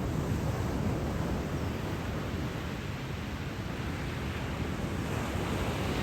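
Ocean surf: a steady rushing of waves, swelling slightly near the end.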